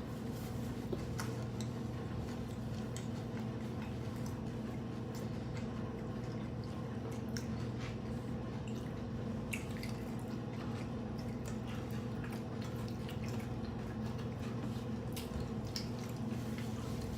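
Close-miked eating: scattered wet clicks and smacks of chewing over a steady low hum.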